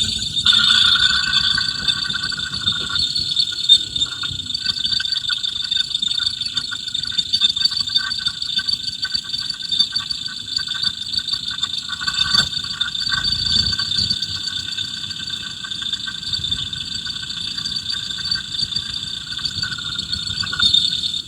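Fuel injector on a running engine heard through an electronic stethoscope's probe: a steady, rapid ticking over a constant high hiss, with the rest of the engine shut out. It sounds normal, not the rattle being hunted.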